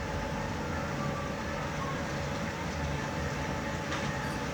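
Steady low rumbling background noise, with a few faint clicks near the end.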